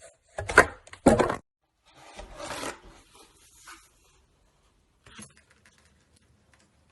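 Slime being squished and pressed by hand: two short, loud squishes in the first second and a half, then a longer rubbing, crackling stretch, fading to faint clicks.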